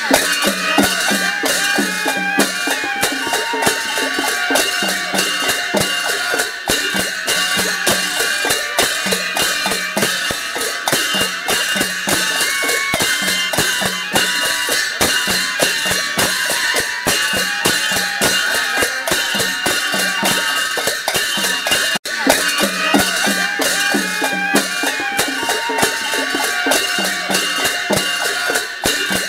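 Music with fast, steady drumming under a sustained melody line, with a brief dropout about 22 seconds in before the music resumes.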